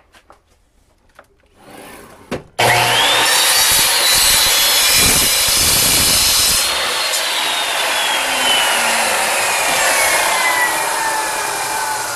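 A few light knocks, then an electric power saw starts about two and a half seconds in, its motor whine climbing quickly to full speed, and runs loudly as it cuts; the pitch of the whine slowly falls over the last five seconds.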